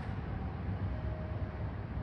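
Steady low rumble of an electric train receding down the line after leaving the station, with a faint thin whine over it.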